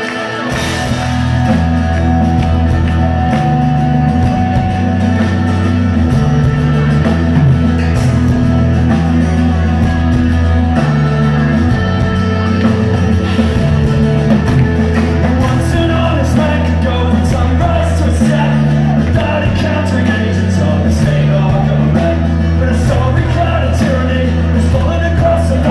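Live rock band playing: strummed acoustic guitar, electric bass with a prominent stepping bass line, and drums, with a sung lead vocal.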